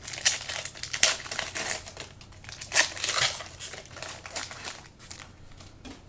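Plastic card packaging crinkling and crackling as football trading cards are handled, with sharp clicks and rustles, busiest in the first half and tapering off.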